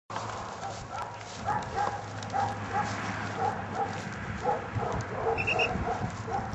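A dog whining and yipping in short, repeated high cries, about two or three a second, starting about a second and a half in, over a steady low hum.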